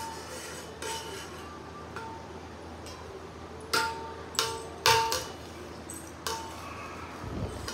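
A hard object being struck again and again at an uneven pace, about eight knocks, each with a short ringing note, over a low steady hum.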